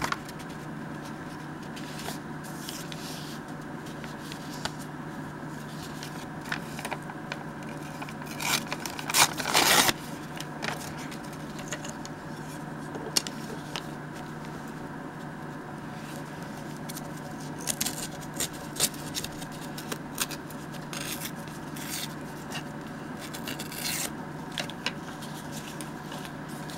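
Sheets of paper handled and slid across a table: intermittent rustling and scraping, with a louder rustle about nine seconds in, over a steady low hum.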